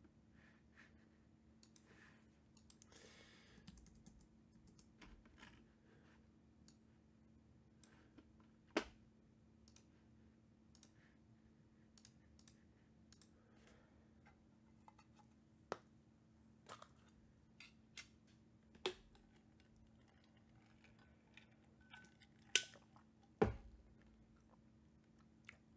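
Sparse, irregular clicks and taps of a computer keyboard and mouse, with a handful of sharper knocks, over a faint steady low hum.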